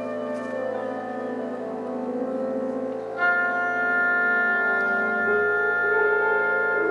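Chamber quartet of flute, oboe, piano and double bass playing held, sustained tones in a contemporary piece. About three seconds in, a high held tone enters and the music grows louder.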